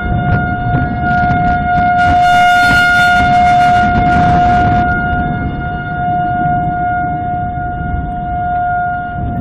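Outdoor tornado warning siren sounding a steady, unwavering tone, swelling louder and brighter between about two and five seconds in, over a low rumbling noise.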